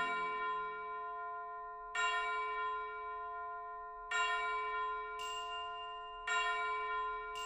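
Background music: a bell-like chord struck three times, about two seconds apart, each left to ring out and fade before the next.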